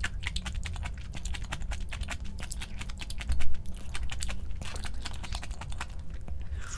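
Close-up chewing of crunchy food: a rapid, irregular run of crisp crunching clicks, with one louder dull thump about three and a half seconds in.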